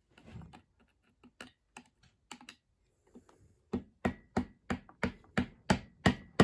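Hammer tapping on a screwdriver, metal on metal, to bend back the locking tab that holds a nut: a few light taps at first, then a steady run of about three sharper blows a second over the last few seconds.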